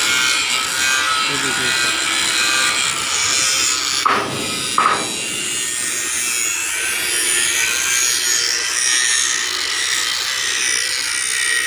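Handheld angle grinder cutting into a steel panel frame, a steady high hiss of the disc on metal, with two brief louder noises about four and five seconds in.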